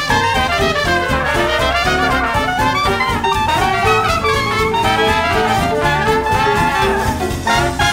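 Jazz music led by brass instruments, playing on without a break.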